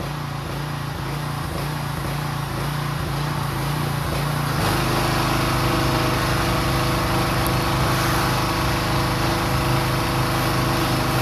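A small engine or motor running steadily, a continuous hum with a fixed pitch; its tone shifts slightly about four and a half seconds in.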